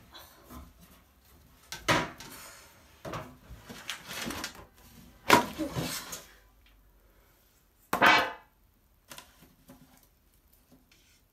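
Large metal popcorn tin being handled and its lid pried at by hand: a series of metallic knocks and scrapes, loudest about two, five and eight seconds in, then only small taps.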